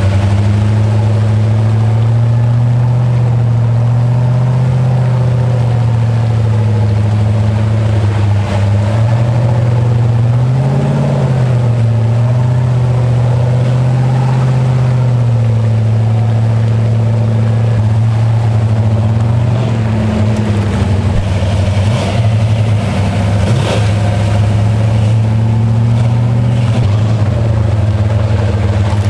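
Off-road Jeep's engine running steadily under load while the vehicle drives along a muddy trail, with a brief rise in revs about eleven seconds in. A few sharp knocks come in the second half.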